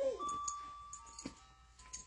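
Background music: a simple melody of long held notes, with a brief pitched vocal sound right at the start.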